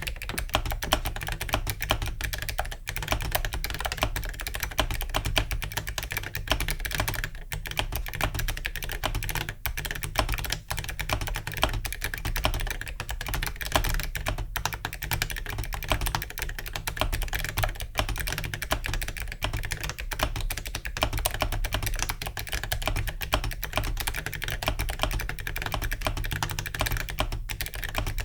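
Continuous fast typing on a mechanical keyboard: ZealPC Clickiez switches under Awekeys metal keycaps in a roomy 8BitDo keyboard case, a dense, steady run of key clicks.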